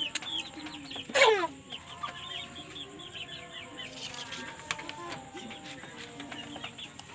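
A flock of young chickens peeping and clucking, many short high falling peeps overlapping, with one loud call falling sharply in pitch about a second in.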